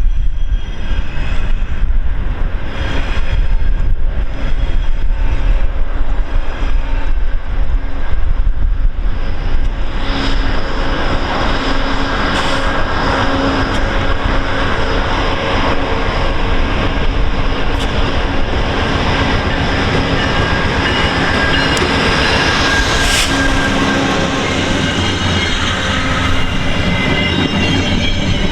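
VIA Rail passenger train hauled by two GE P42DC diesel locomotives rolling through the station. For about the first ten seconds the wheels knock over the rail joints in an even rhythm under a heavy rumble. After that the sound turns into a denser, steady rumble with held high tones of wheel squeal.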